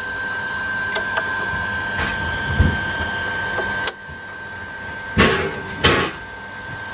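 Plastic water-pump fittings being handled and tightened by hand, just snug because they are plastic. Scattered small clicks and knocks come in the first few seconds, then two short, loud rasping scrapes about five and six seconds in, over a faint steady tone.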